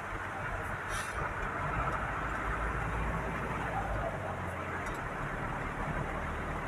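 Inside a vehicle driving in heavy rain: steady engine and tyre noise on the wet road mixed with the hiss of rain and spray, and the windshield wipers sweeping. A low rumble swells for a couple of seconds in the middle.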